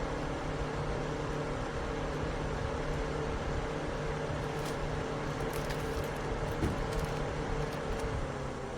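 Dual-motor portable evaporative air cooler running steadily with a constant hum and airflow noise. A few faint clicks come through midway.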